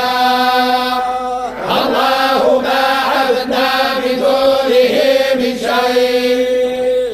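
A group of men reciting the Quran in unison in the Moroccan collective hizb style (tahazzabet), drawing out long held notes with slowly wavering pitch. The voices break briefly about one and a half seconds in.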